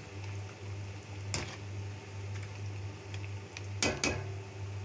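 Potato finger chips deep-frying in hot oil in a karahi, a soft steady sizzle under a low hum, with sharp clicks of a metal wire skimmer against the pan about a second and a half in and twice in quick succession near the end.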